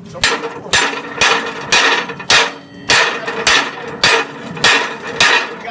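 A hammer striking a freshly welded steel joint about twice a second, knocking the slag off the weld bead. Each blow is a sharp metallic hit with a short ring.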